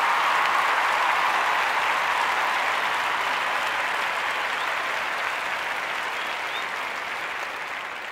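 A crowd applauding, a dense steady clapping that slowly fades out.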